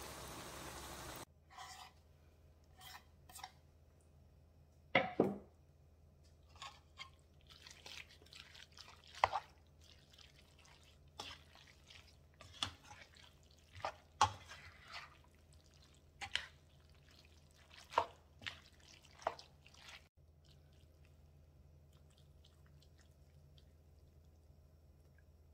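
A slotted spoon and fork stirring and tossing creamy fettuccine in a nonstick skillet: irregular wet clicks, scrapes and squelches of the utensils against the pan and the sauced pasta, thinning out to faint ticks about twenty seconds in. A steady hiss at the start cuts off about a second in.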